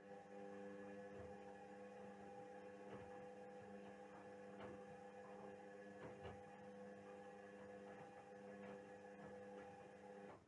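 Indesit WISL 62 washing machine giving a steady electrical hum with a few faint ticks. The hum starts suddenly and cuts off suddenly after about ten seconds.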